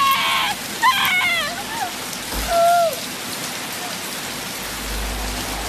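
Heavy rain falling steadily on pavement, with a woman's anguished crying: three wailing, wavering cries in the first three seconds. Near the end a low rumble swells under the rain.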